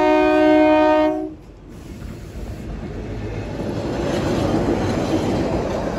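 The Kalka–Shimla toy train's diesel locomotive sounds its horn as it leaves the tunnel. The steady horn chord cuts off after about a second. It gives way to the rumble of the locomotive and coaches passing close by, which grows louder.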